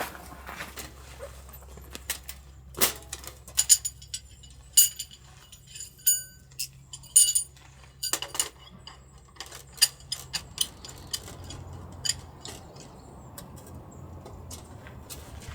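Small hard items, such as tableware or camp gear, being handled and set down: a quick run of clinks and light knocks, a few ringing briefly with a bright metallic tone, thinning out after about ten seconds.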